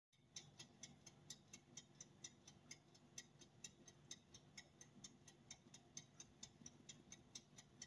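Handheld metal mesh sieve tapped by hand to sift flour, giving faint, even light ticks about four or five times a second.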